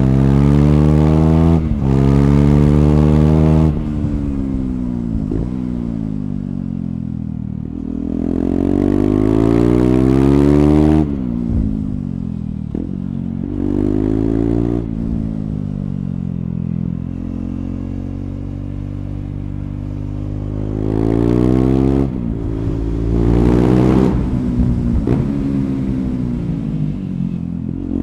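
KTM Duke 390's single-cylinder engine through an Akrapovic slip-on exhaust, ridden hard. The revs climb through the gears with quick breaks for upshifts, then fall away on a closed throttle under engine braking, and this repeats several times. There is a steadier stretch in the middle.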